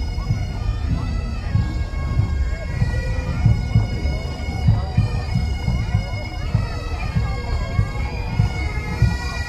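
A marching pipe band's Highland bagpipes playing a tune over their steady drone, with the band's drums beating underneath.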